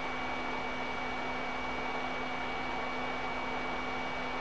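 Hot-air heat gun blowing steadily onto the HDMI port's solder joints, an even hiss with a low hum and a faint high whine, heating the solder so that it reflows.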